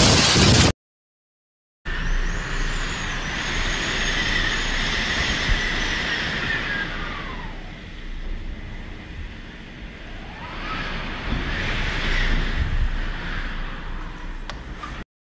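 Tropical-storm wind and driving rain: a steady rush with a faint whistling tone that slides down in pitch about halfway through and climbs back up a few seconds later. It is loud at the very start, then cuts out for about a second.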